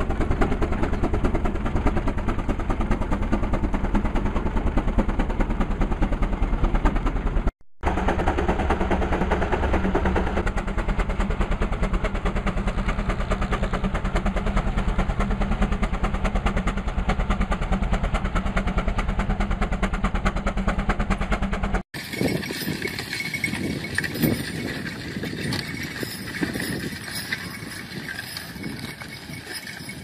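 Steam traction engine running under load as it pulls a plow, with a fast, steady clattering beat. The sound drops out for a moment about seven seconds in. It stops abruptly after about 22 seconds, and quieter, uneven outdoor sound follows.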